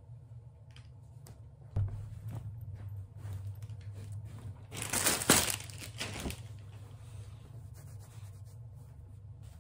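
Cotton clothes being handled and unfolded: a sweatshirt and trousers rustling, with a louder rustle of fabric about five seconds in.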